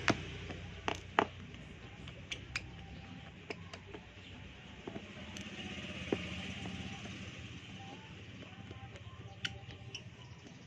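Scattered small, sharp clicks and taps of work on a Samsung Galaxy J3 phone during disassembly, over a steady low background hum.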